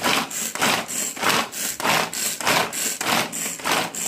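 Hand-pulled cord food chopper whirring in a quick, even rhythm of nearly three pulls a second, its blades chopping onion inside the plastic bowl.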